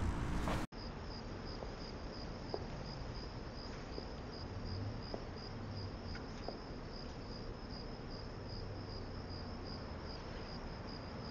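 Crickets chirring steadily, a continuous high trill with a slight pulse over a faint low hum. A voice at the very start is cut off abruptly under a second in.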